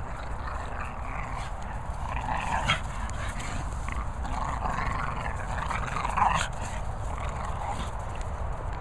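Two Staffordshire bull terrier-type dogs growling in play as they tug on a rope toy between them, louder in two spells, about a third of the way in and again around two-thirds through.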